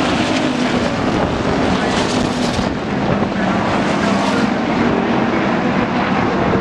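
Hobby stock race cars' engines running as the cars lap an oval track: a loud, continuous drone whose pitch wanders up and down as the cars pass.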